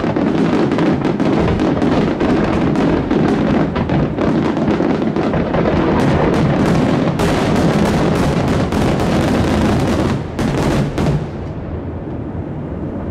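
Dense barrage of aerial fireworks shells bursting over one another, a continuous run of bangs and crackle that is thickest and sharpest in the middle and cuts off suddenly about eleven seconds in, leaving a lower background.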